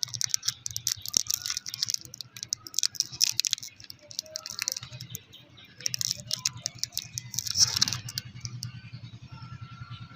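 Wrapped toffees being handled, with their plastic wrappers crinkling and crackling and the sweets rattling together. It comes in bursts of quick small clicks: a long run in the first few seconds and another from about six to eight seconds in, over a faint steady hum.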